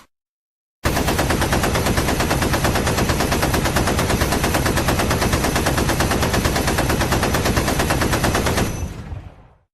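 Machine gun firing one long continuous burst of rapid automatic fire, shots packed tightly together, starting about a second in and running about eight seconds before trailing away.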